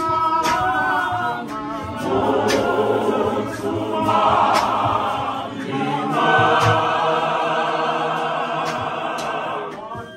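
A church congregation of men and women singing a hymn together unaccompanied, in parts, with sharp beats roughly once a second keeping time. The singing breaks off briefly near the end.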